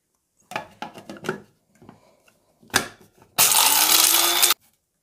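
Clicks and knocks as the plastic lid is fitted on a small electric blade grinder, then the grinder runs for about a second, its motor tone rising slightly, while it crushes activated charcoal tablets to powder. It cuts off suddenly.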